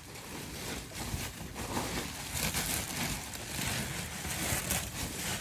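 Plastic packaging crinkling and rustling in irregular bursts as it is pulled off a new stroller.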